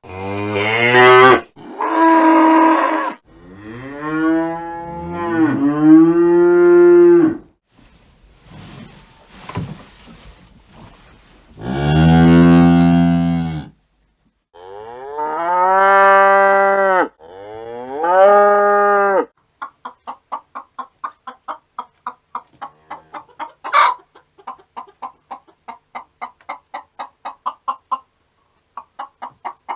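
Cattle mooing: a series of long, drawn-out calls, some deep and some higher-pitched. From about two-thirds of the way in they give way to a quick, even run of short repeated sounds, about three a second.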